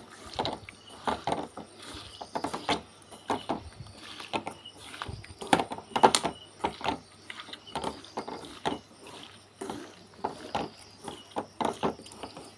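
A hand mixing small whole raw fish with sliced onions and spices in an aluminium pan: irregular taps, squishes and scrapes of fish against the metal, several a second.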